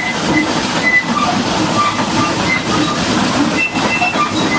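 Steady, loud hiss of a high-pressure water jet washing down a Caterpillar D8R bulldozer, with brief faint high squeaks now and then.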